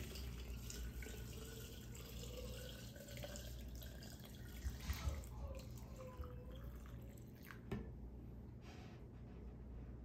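Hot water being poured by hand into a glass jar of apples, a quiet trickle and splash of liquid with some dripping, and a few light knocks along the way.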